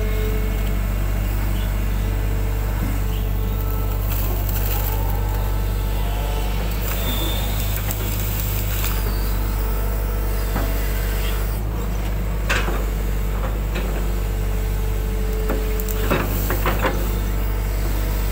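Hydraulic excavator's diesel engine running steadily under working load, heard from the operator's cab, with a few knocks and scrapes as the bucket works wet mud around the middle and toward the end.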